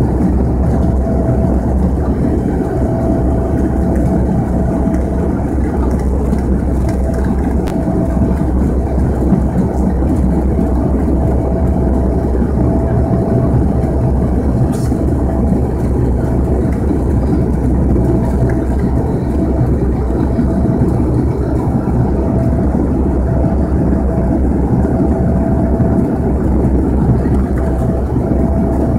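Cabin noise inside a Bombardier Dash 8-100 turboprop in flight: the steady drone of its engines and propellers, a low rumble with one constant hum above it.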